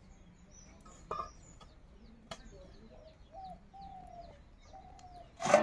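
Chickens clucking and small birds chirping faintly. Near the end a steel plate is set down on the ground with a sudden loud clang that rings on briefly.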